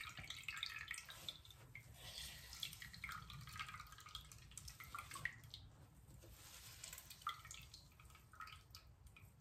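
Faint dripping and squelching of coconut milk being squeezed out of a nut milk bag full of wet coconut flesh.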